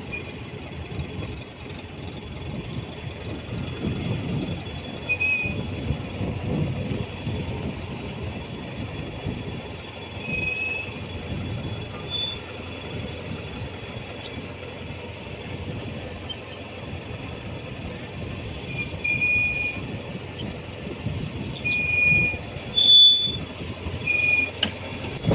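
Water splashing and sloshing, with fish thrashing in a net at the surface beside the boat. Short high squeaks come through every few seconds.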